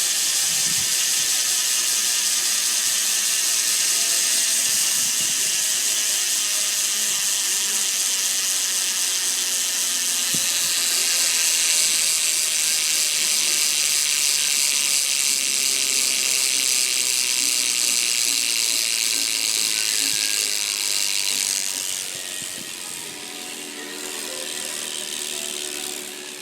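Madera 9-tooth cassette rear hub on a BMX bike freewheeling as the wheel spins, its pawls making a fast, dense ratcheting buzz. It turns quieter about 22 seconds in.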